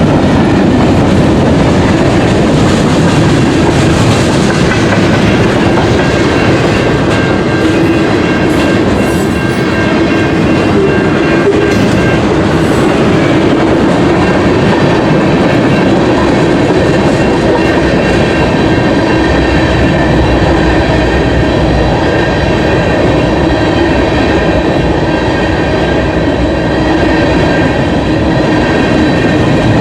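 Freight cars of a passing CN manifest train rolling by at close range, a steady loud rumble with wheels clicking over the rail joints.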